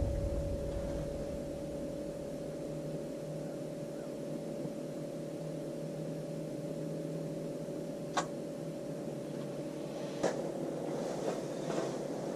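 Steady hum of a small motor with a constant faint whine, and two light clicks about two seconds apart in the second half.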